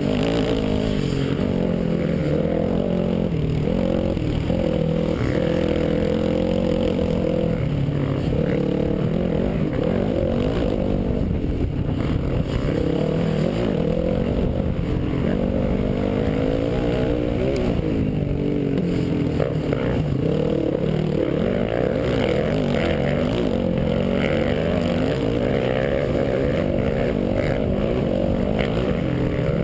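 Off-road dirt bike engine running hard under the rider, its pitch rising and falling over and over with throttle and gear changes, heard from a helmet-mounted camera.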